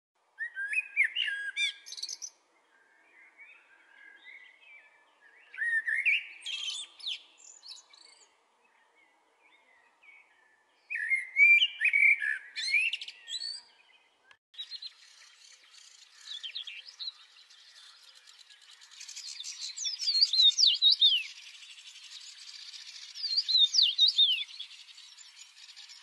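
Male common blackbird singing: three separate warbling phrases, each ending in a high, squeaky twitter. About halfway through, a different recording with a steady hiss takes over, in which another songbird gives two bursts of quick, falling notes.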